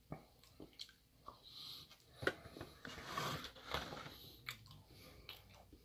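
Quiet, close-miked chewing and mouth sounds of someone eating soft Yule log cake, a sponge roll with whipped frosting, from a fork. A few sharp clicks are scattered through it, and there is a louder, noisier stretch in the middle.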